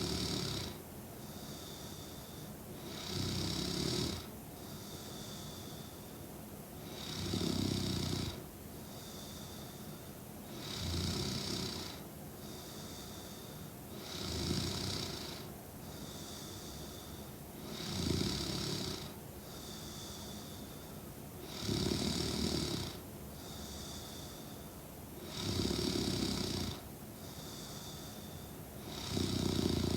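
A young woman snoring in sleep, with a steady rhythm of about eight loud snores, one roughly every three and a half to four seconds. Between them come softer breaths with a faint thin high tone.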